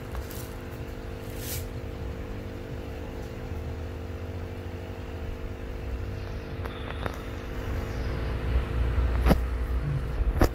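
Steady mechanical hum with an uneven low rumble that grows louder over the last few seconds, and two sharp knocks near the end.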